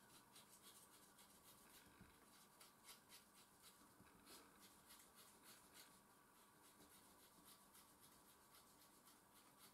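Rubber eraser scrubbing back and forth on paper, rubbing out pencil guidelines. It comes as faint, quick, scratchy strokes, several a second.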